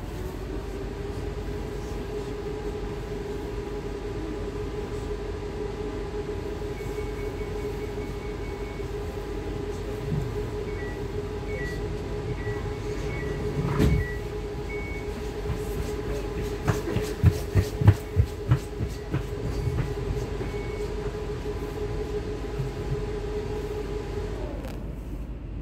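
ES2G Lastochka electric train running, heard from inside the carriage: a steady electric whine with several overtones holds, then cuts off about a second before the end. A louder knock sounds around the middle, and a quick run of knocks over the rail joints follows a few seconds later.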